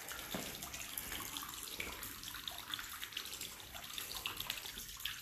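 Running water trickling steadily in a small waterway.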